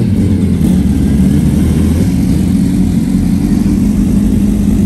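Sport motorcycle engine running steadily at an even pitch, over a low rumble.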